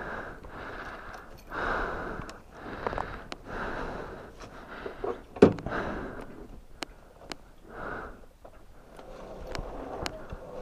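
A rider's heavy breathing, in breaths about a second apart, after a hard struggle with the motorcycle on rough ground. Scattered light clicks, and one sharp knock about halfway through.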